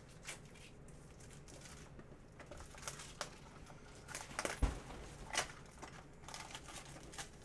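Trading cards and their packaging being handled on a table: light rustling and several small clicks and taps, with one heavier thump about two-thirds of the way through.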